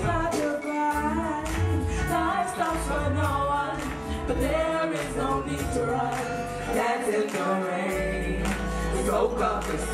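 Live band music with several vocalists singing into microphones over a deep, pulsing bass line.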